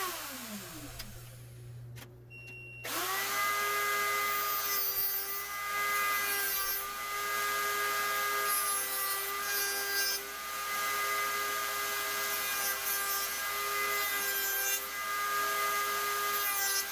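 Router motor winding down right at the start, then switched on again about three seconds in and running at a steady whine. Its round-over bit cuts the end of a wooden hinge piece in repeated hissy passes.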